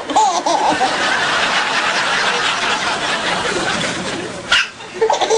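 People snickering and laughing, with one short, sharp baby's hiccup about four and a half seconds in.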